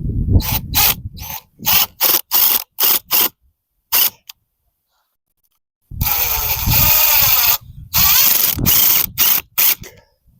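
Power drill run in quick short bursts, then held for a longer run about six seconds in, followed by more short bursts, as when driving screws into wood.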